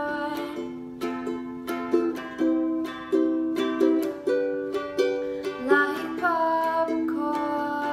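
Ukulele strumming chords in an instrumental passage of a song, with a new strum every half second to a second.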